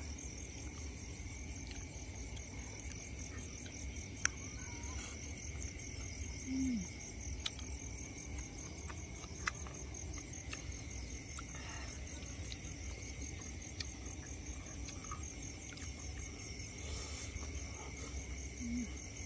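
Crickets and other insects trilling in a steady chorus: a fast pulsing high trill over a steady lower tone, with a few faint clicks.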